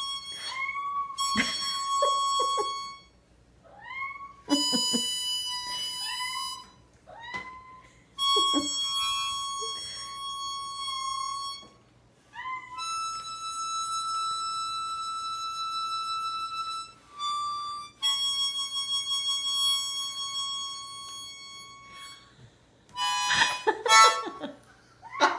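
Harmonica playing long held notes in phrases with pauses between them, while a kitten meows along, its meows sliding up to match the harmonica's pitch. Near the end there is a burst of louder, ragged sound.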